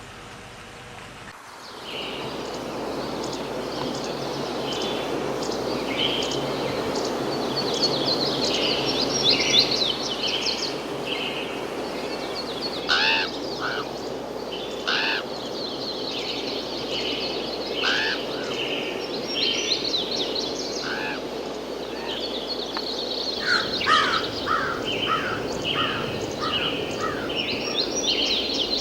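A dense chorus of birds chirping, with repeated harsh calls of crows, over a steady background hiss. It cuts in suddenly about a second and a half in.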